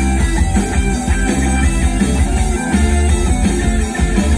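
Rock band playing live: electric guitars, bass guitar and drums, loud and steady with a heavy bass line.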